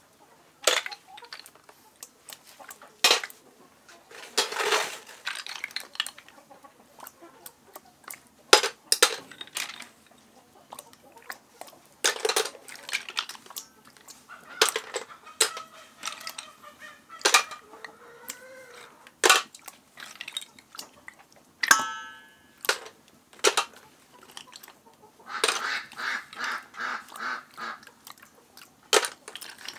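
River snail shells clicking and knocking against a stainless steel bowl and each other as they are handled and stirred by hand. Sharp knocks come every second or so. Poultry calls now and then, with a fast run of repeated calls near the end.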